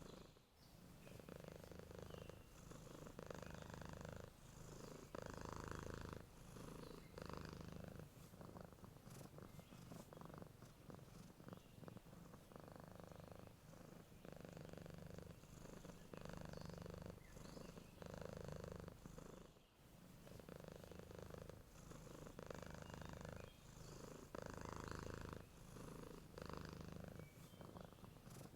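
Sleeping domestic cat purring softly and steadily, the purr swelling and fading with each breath in and out about every second and a half.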